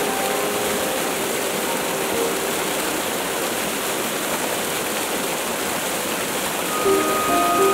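Steady rushing roar of falling water from the Polska Skakavitsa waterfall, with faint background music over it at the start and the music coming back in near the end.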